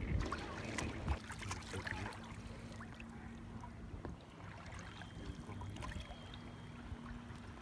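Small waves lapping and splashing against a kayak hull, with scattered light knocks and clicks, densest in the first few seconds. A faint steady low hum runs underneath.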